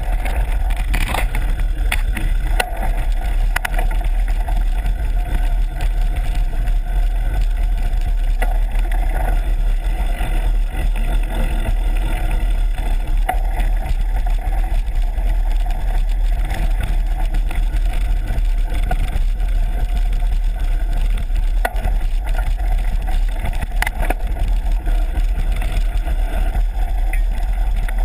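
Mountain bike riding a dirt trail, heard on a GoPro's microphone: a steady heavy low rumble of wind and ride noise, with scattered clicks and knocks as the bike rattles over bumps.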